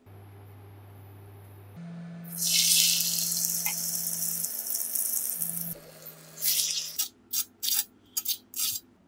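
Salmon fillet sizzling loudly in hot oil in a frying pan, a steady hissing sizzle that begins about two seconds in. Near the end it gives way to a run of short crunchy bursts as a knife cuts through the crisp seared crust.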